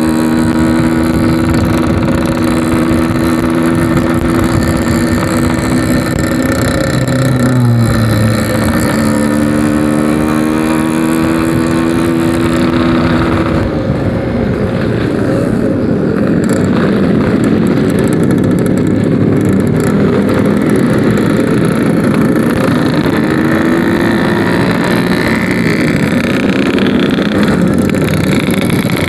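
Yamaha RX-King two-stroke single-cylinder motorcycle with a 'packing power' exhaust running under way, holding a steady pitch, dipping briefly about a quarter of the way through, then sounding rougher and noisier in the second half with a rise in pitch near the end.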